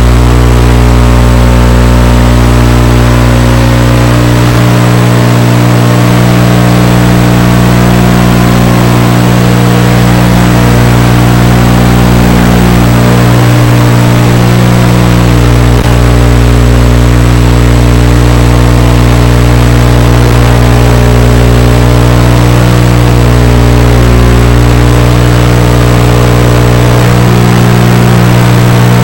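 FPV quadcopter's electric motors and propellers whining steadily, very loud and close, several tones at once that shift slightly as the throttle changes.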